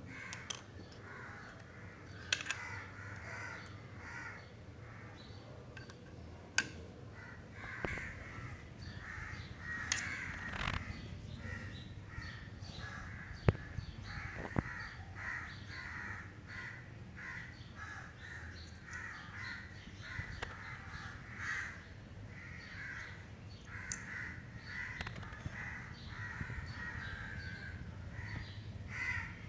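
Birds calling over and over in the background. A few sharp clicks cut through, the loudest about halfway, from the WiFi card being handled and lifted off the motherboard.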